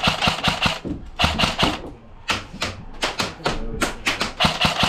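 Airsoft guns firing in rapid bursts of sharp clacks, four short bursts with brief pauses between them.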